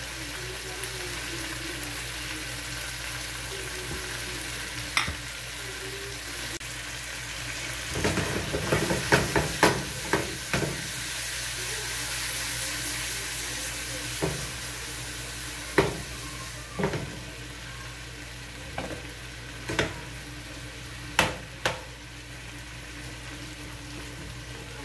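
Chicken pieces with sliced onion, red bell pepper and tomato sizzling in a frying pan, a steady hiss. About a third of the way in comes a burst of clattering as the food is turned in the pan, followed by scattered sharp knocks of a spatula against the pan.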